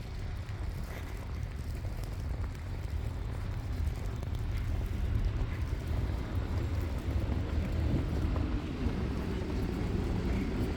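Low rumble of wind buffeting the microphone, with a vehicle engine running under it, growing a little louder in the second half.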